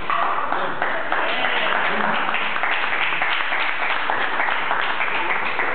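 Spectators applauding, a dense, steady patter of many hands clapping that breaks out suddenly, with voices mixed in.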